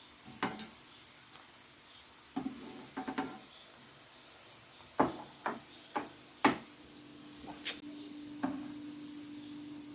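Small dough balls of mashed banana sizzling steadily in hot oil, with a utensil clinking sharply against the pan several times as they are turned and lifted out. A low steady hum comes in about two-thirds of the way through.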